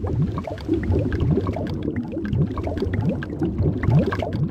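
Underwater bubbling sound effect: a stream of bubbles heard as many quick rising blips over a steady low rumble.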